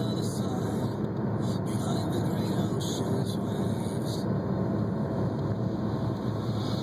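Steady low rumble of a car driving on a snow-covered road: engine and tyre noise.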